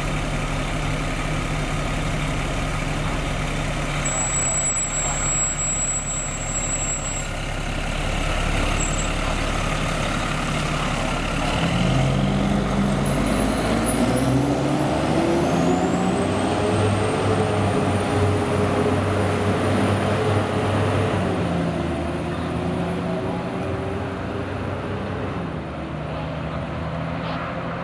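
Fire ladder truck's Caterpillar C12 diesel engine idling, then revving up through its gears as the truck pulls away about twelve seconds in. A whine climbs in pitch with it and then holds.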